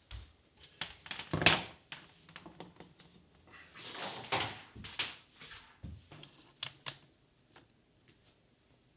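Footsteps on a wooden floor and handling noises as a laptop charger cable is picked up and plugged in: scattered thumps and rustles, the loudest a knock about a second and a half in, a longer rustle around four seconds, and a few sharp clicks near seven seconds.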